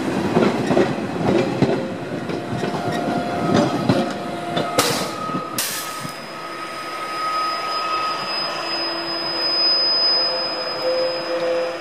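Metre-gauge Matterhorn Gotthard Bahn passenger coaches rolling out of the station, their wheels clattering and knocking over the points. About five seconds in come two short bursts of hiss. The wheels then set up a drawn-out, high squeal as the train takes the curves away.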